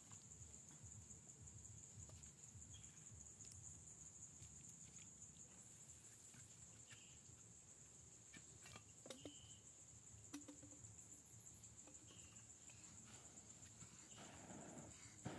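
Quiet forest ambience: insects keep up a steady high-pitched drone, with a few faint clicks and short chirps, and light rustling near the end.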